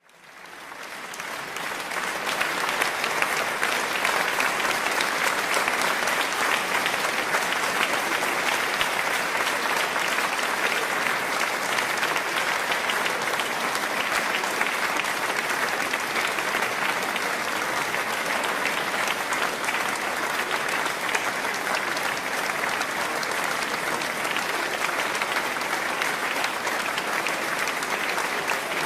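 A large crowd applauding, dense and continuous clapping that fades in over the first couple of seconds and then holds steady.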